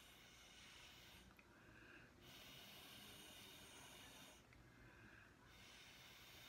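Faint, steady blowing of breath onto wet acrylic paint to push it across the canvas in a Dutch pour. The blowing breaks off twice for about a second, each time for a breath in.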